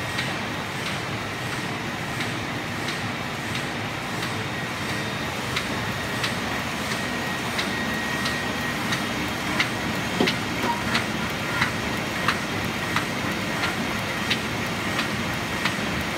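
Roland Favorit six-colour sheetfed offset printing press running at production speed: a steady mechanical din with a sharp click about every two-thirds of a second and a faint steady whine.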